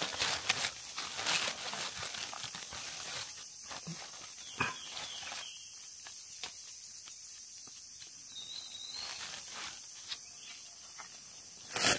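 Dry leaf litter rustling and crackling as someone moves through it and picks at the ground, with scattered short clicks and snaps.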